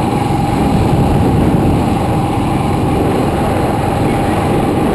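Motorbike riding along a road: its engine runs steadily under a rush of wind on the microphone, with a thin, steady whine over it.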